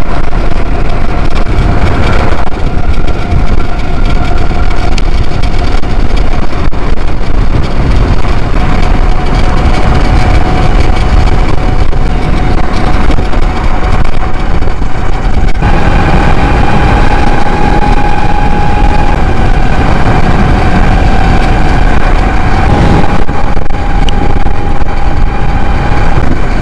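Stock Tuttio e-bike motor driven by a Far Driver controller, whining steadily at high speed under heavy load, pushed to about double its rated continuous power. The whine is a steady high tone that steps up in pitch a little past halfway as the bike speeds up, over loud wind noise on the microphone.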